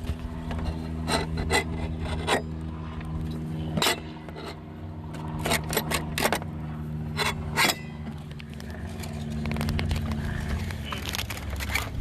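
Hand work on a surface cleaner's bar fitting: irregular sharp metal clicks and scraping as the part is handled and fitted. A steady low hum runs underneath.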